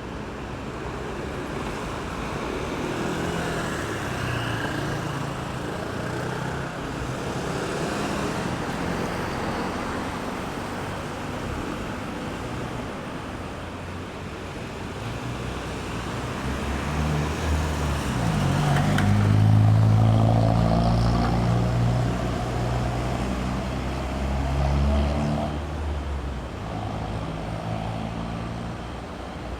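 Road traffic: a steady wash of passing cars' tyres and engines. From about halfway a heavy vehicle's engine comes up close and loud, rising in pitch as it pulls away, then fades before the end.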